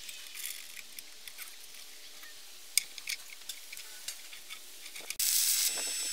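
A few light clicks and taps of steel parts being handled over a low hiss, then about five seconds in a stick welding arc strikes and crackles loudly on the steel plate, briefly dropping back before catching again.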